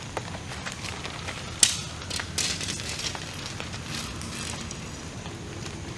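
Tent fabric rustling and crinkling as it is handled and spread out, with a sharp click about one and a half seconds in and a few softer clicks after it.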